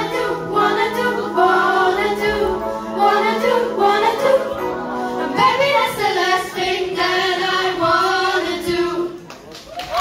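A group of young female singers singing together with a live rock band of electric guitars and keyboard. The song closes on one long held note, and the music stops about nine seconds in.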